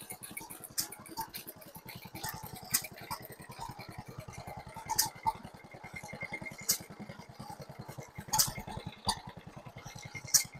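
Vintage stationary engines running with a fast, even beat, and a sharper crack every second or two.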